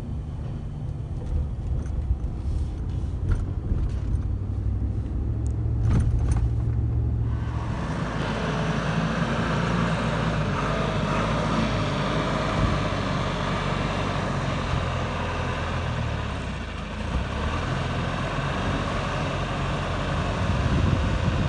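Low road rumble inside a moving vehicle's cab, with a few faint clicks. About seven seconds in it cuts abruptly to a log skidder's diesel engine running loudly as the skidder drives up to a lowboy trailer for loading.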